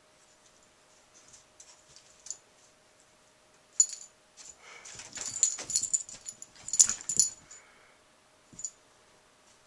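A cairn terrier and ferrets scuffling around a plastic hut on carpet: scattered clicks and light jingling rattles, busiest from about four and a half to seven and a half seconds in.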